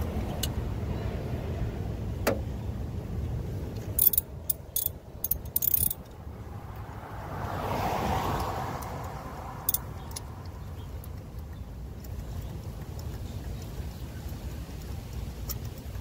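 Hand tools and plastic coil connectors clicking and clinking during work on an engine's ignition coils, with a quick run of sharp metallic clinks about four to six seconds in. A passing car rises and fades around the middle.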